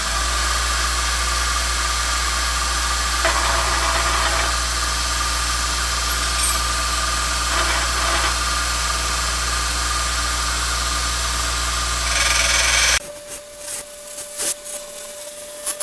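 Power grinder running steadily while it grinds a U-shaped notch into a pocket knife's steel rocker spring. The grinding turns harsher in three brief stretches, and the motor cuts off suddenly about thirteen seconds in, leaving a faint steady tone and light clicks.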